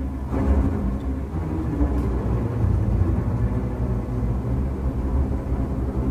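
A low, steady rumble with faint held tones above it, like an engine-type drone.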